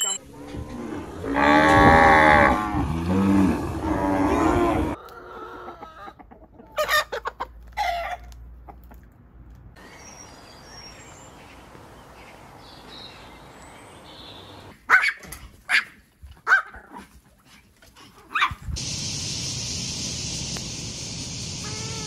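Farm animal calls, loudest in the first five seconds, then scattered short calls and clicks, and a steady high hiss over the last few seconds.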